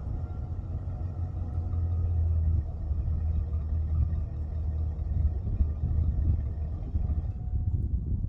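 A 1999 GMC Sierra 1500 pickup's engine idling with a steady low rumble. A fainter higher hum drops out about seven seconds in.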